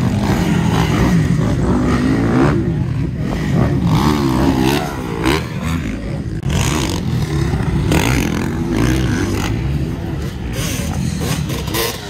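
Dirt bike engine revving, its pitch rising and falling again and again.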